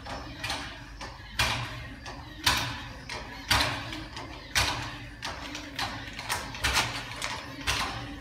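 Hand-operated hydraulic pump on a drum reel trailer being worked in steady strokes, a sharp clack about once a second, as it pressurises the hydraulic pistons that lift the drum.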